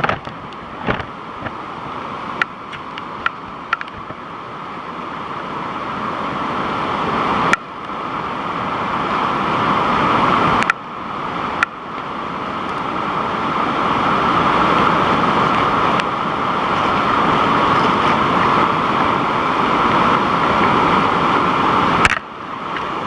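Waterfall rushing: a steady noise of falling water that grows louder in stretches, broken off sharply a few times, with a few faint clicks in the first few seconds.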